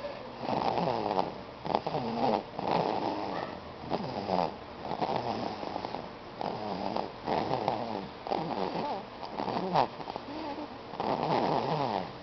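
A two-month-old snoring: a rattling snore on each breath, repeating about once a second.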